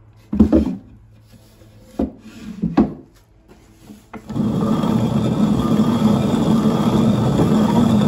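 A few wooden knocks, then from about four seconds in the steady grinding rumble of a hand-turned rotary quern (Roman-type hand mill): the upper millstone turning on the lower one as it grinds grain.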